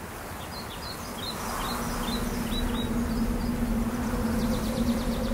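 Small birds chirping in short, quick calls over a soft hiss, as a steady low sustained tone fades in about a second and a half in and holds: the opening of a soundtrack.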